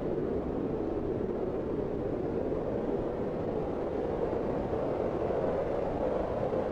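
Strong wind blowing steadily: an even, low rushing with no distinct gusts or breaks.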